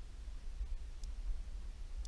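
Steady low rumble of wind and water on an action camera's microphone, with one faint click about a second in.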